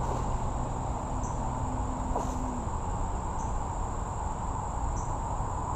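Insects trilling in one continuous high-pitched buzz, with a steady low rushing noise underneath.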